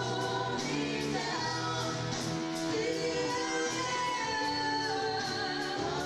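Stage show music: singing over instruments, with long held notes.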